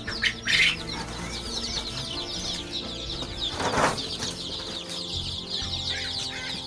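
A brood of five-day-old local (desi) hen chicks peeping all together, many short high chirps overlapping without pause. Two brief rustling noises cut through them, the louder one about four seconds in.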